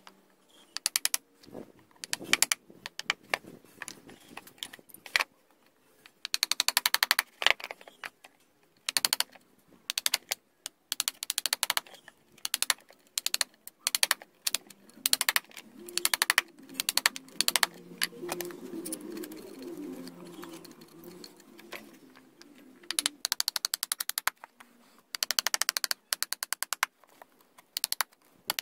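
Wooden mallet striking the handle of a wood chisel driven into a weathered wooden beam, in quick runs of blows, several a second, with short pauses between runs, as the chisel cuts a hole for a railroad spike.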